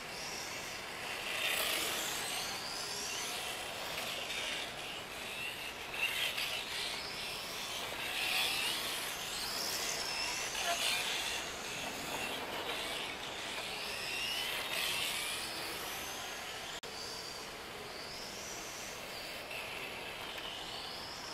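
A 1/10 scale electric RC car's brushless motor and belt drive whining, the pitch rising and falling over and over as the throttle is worked, with the motor running sensorless (its sensor cable unplugged).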